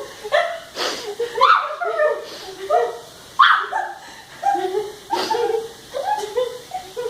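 A girl's gruff, bark-like yelps and laughing grunts as she is tickled, a short burst about every half second to a second.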